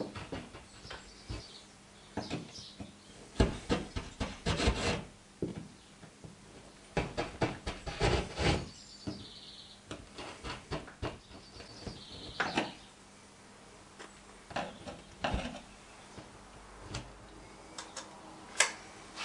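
Metal awl scraping and picking at holes in a textured plaster ceiling: irregular runs of scratching and sharp clicks with short pauses between them.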